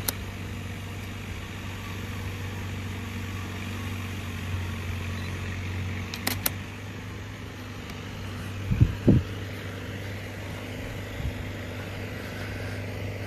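Steady machinery hum with several fixed low tones. Two sharp clicks come about six seconds in, and a couple of dull thumps about nine seconds in.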